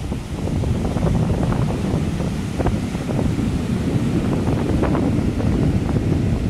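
Ocean surf breaking and washing up the beach, nearly buried under a steady low rumble of wind buffeting the microphone.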